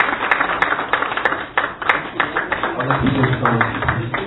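Audience applauding with many hands clapping, with a man's voice heard briefly about three seconds in.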